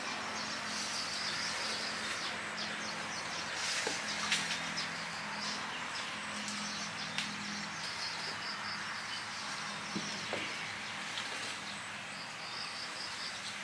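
Birds chirping and insects trilling, with a faint low steady hum and a few faint clicks.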